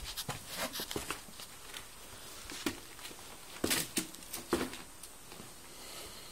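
A few irregular footsteps and scuffs in a small room, a cluster of them a little past the middle, then quiet.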